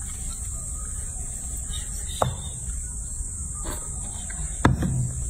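Hands washing a baby monkey in a sink of soapy water: soft water and rubbing sounds over a steady hiss, with two sharp knocks, one about two seconds in and a louder one near the end.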